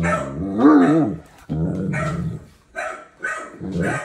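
Dog barking and vocalizing in several bouts: a low, drawn-out sound, then pitched calls that rise and fall.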